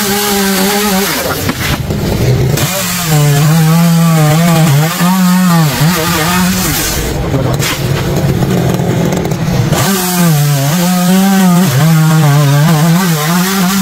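Petrol chainsaw running at high revs as it cuts into a palm trunk, its pitch wavering and dipping under load. It eases off for a few seconds in the middle, then cuts again.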